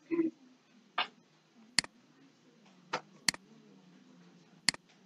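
Computer mouse button clicks, about five separate sharp clicks spread over a few seconds.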